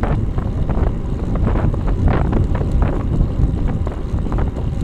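Wind buffeting the microphone of a camera mounted on a road bike riding at around 32 to 35 km/h. It is a loud, steady low rumble mixed with tyre and road noise.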